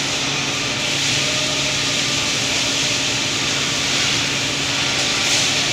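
Steady hiss and low hum of running machinery in a robot welding workshop, unchanging throughout.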